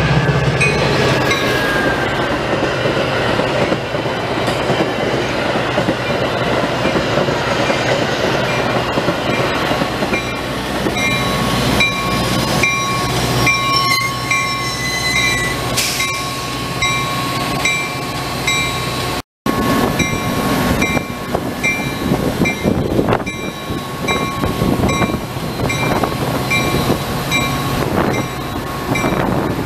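A train running past, with a steady rumble and wheels clicking on the rails. A high ding repeats at an even pace through it. The sound cuts out for a split second about two-thirds of the way through.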